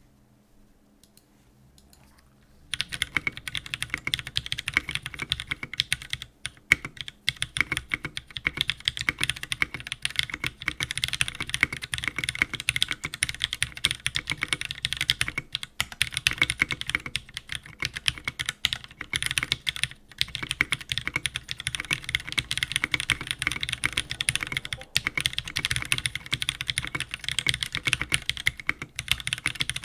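Fast, continuous typing on a Trinity XT custom mechanical keyboard built with Jwick Black linear switches on an FR4 plate, Zeal stabilizers and black blank keycaps. The typing starts about three seconds in, after near silence.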